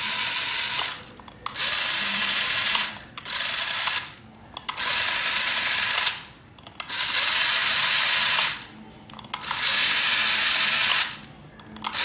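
Small DC gear motors of a homemade remote-control car whirring in short runs of a second or so, starting and stopping about five times as the remote's buttons are pressed.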